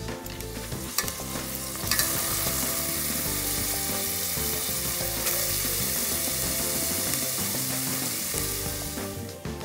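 Diced onion and carrot frying in oil in a metal pan: a loud, steady sizzle that starts abruptly about two seconds in, after a few knife taps on a wooden cutting board.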